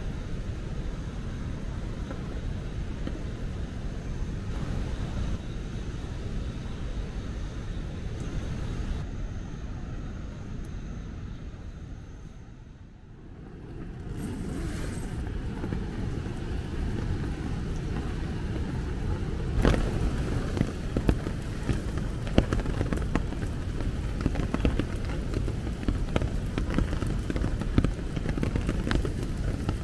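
Heavy rain falling steadily. It drops away for a moment about halfway through, and in the last third many sharp, irregular drop taps come through.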